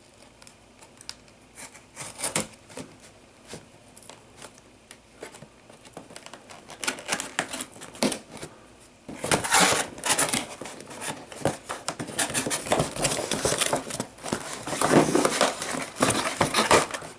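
Packaging being handled and opened: scattered small clicks and rustles, then from about nine seconds in a louder, dense stretch of crinkling and tearing.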